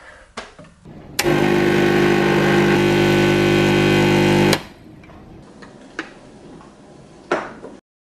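Gaggia Classic espresso machine's vibratory pump buzzing steadily while a shot of espresso pours into a cup, starting about a second in and cutting off suddenly after about three and a half seconds. A few light clicks come before and after.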